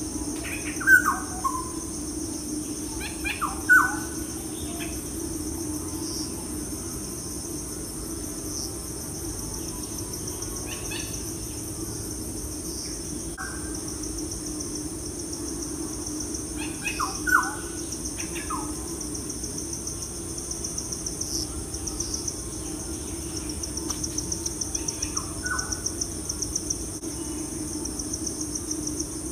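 Birds chirping now and then: short falling chirps, a few of them loud, over a steady high hiss and a low hum.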